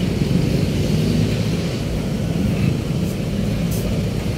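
Steady low engine rumble of heavy road traffic close by.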